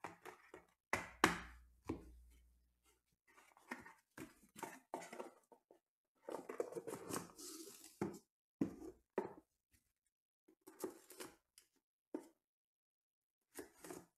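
Sealed card boxes being handled and set down on a tabletop: a few sharp knocks about a second in, then scattered scraping and rustling of cardboard and packaging, busiest a little past the middle.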